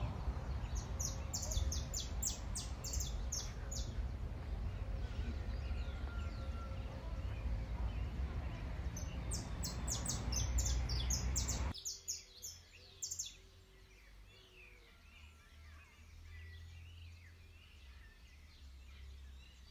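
Park ambience: a bird giving quick runs of very high, thin chirps, twice, over a low rumble. About two-thirds of the way in the sound cuts abruptly to a much quieter stretch with faint, scattered bird chirps.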